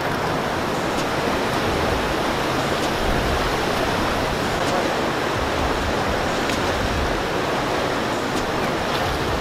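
Steady rush of water churning below a river weir.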